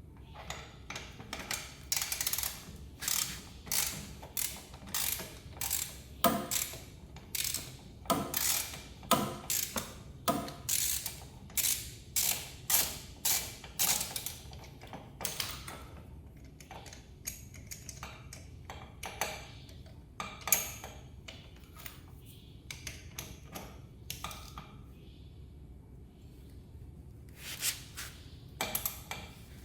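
Hand ratchet wrench clicking in repeated short strokes, about two a second for the first half, then more sparsely, as a bolt is worked.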